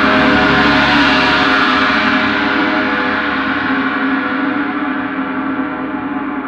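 Gong ringing in a sustained wash of many overlapping tones; its highest overtones die away after about two seconds while the sound slowly gets quieter.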